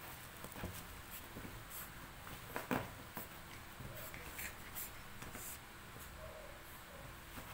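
Puppy scrabbling and rolling on a fabric dog bed: scattered scratching and rustling of paws and body on the cloth, with one louder knock about a third of the way in.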